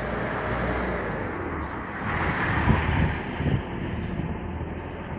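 Thunderstorm noise: a loud, low rumble mixed with wind, swelling about two seconds in and easing off again.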